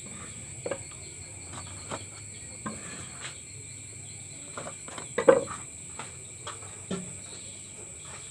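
Steady high-pitched chirring of insects, with a few scattered short knocks or taps, the loudest about five seconds in.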